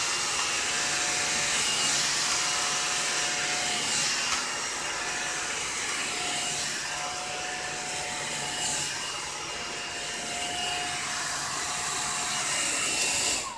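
Handheld blow-dryer straightener (a hot-air brush) running on its low setting: a steady rush of air with a faint motor whine. It is switched off abruptly at the very end.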